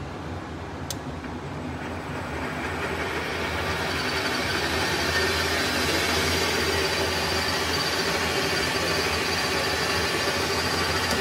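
WEISS WBL210D bench lathe with a 1100 W brushless motor: a click about a second in, then the spindle drive speeds up over a few seconds and settles into steady running with a hum and a high steady tone, at about 950 rpm on its speed readout.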